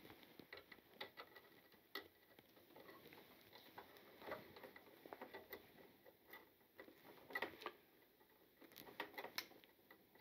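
Faint, scattered clicks and scrapes of pliers twisting two black electrical wires together in a plastic junction box.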